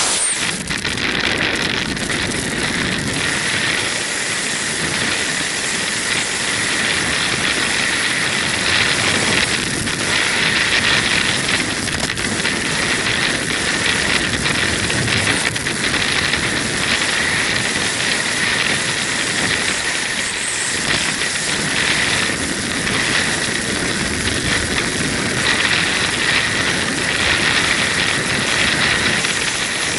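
Loud, steady rush of freefall wind over the microphone of a camera worn by a skydiver in freefall.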